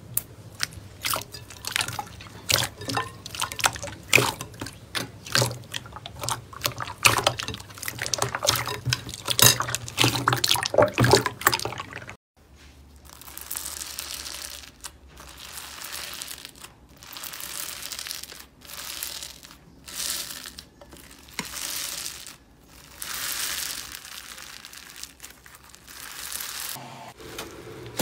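Hands squeezing and pulling clear, watery jelly slime, giving dense wet clicks and crackles. After a cut about twelve seconds in, fingers press into fluffy pink slime: a soft hissing crackle with each push, about one every second or two.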